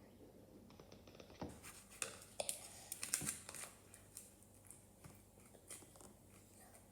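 Soft crackly rustling and small clicks of filling being pushed by hand into a hollowed-out pepper, busiest between about one and a half and four seconds in.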